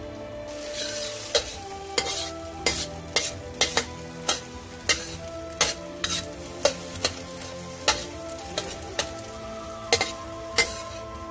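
Metal wok spatula stirring, scraping and tapping against a metal wok as eggs fry and are scrambled in hot oil, with a steady sizzle. Sharp clinks come irregularly, roughly one or two a second.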